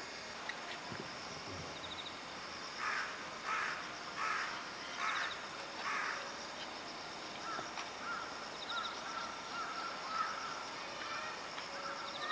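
A crow cawing five times, about one caw every three quarters of a second, over a steady high buzz of insects; after it, a run of short, thin bird notes.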